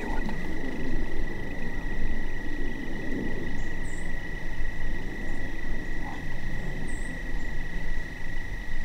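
Steady, unbroken high-pitched trill of crickets in an evening insect chorus, over a low rumble on the microphone, with a few brief very high chirps.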